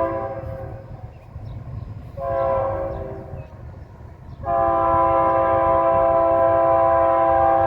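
Diesel locomotive's multi-chime air horn sounding a chord over the low rumble of the passing train. The end of one blast is followed by a short blast and then a long one, the short-then-long close of the grade-crossing signal.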